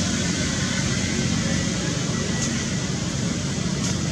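Steady low rumble with an even hiss over it, and two faint short high clicks in the second half.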